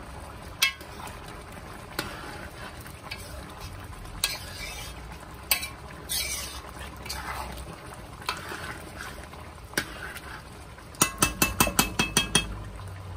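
Long metal spoon stirring and scraping rice pelau in a large metal pot, with scattered clinks against the pot. Near the end comes a quick run of about ten sharp metallic taps of the spoon against the pot.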